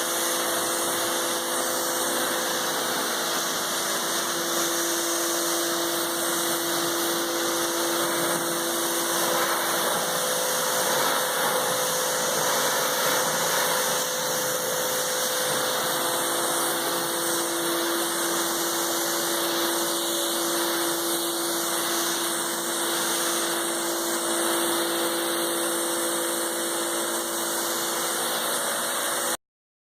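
Karcher 1900 psi electric pressure washer running and spraying a steady jet of water through its yellow 15-degree nozzle onto a truck, a constant hiss with a pump-motor whine. Part of the whine drops out about ten seconds in and returns about six seconds later. The sound cuts off suddenly near the end.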